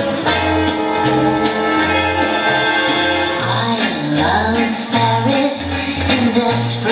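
Recorded song for a line dance, with held instrumental chords over a bouncing bass line. A singing voice comes in about halfway through.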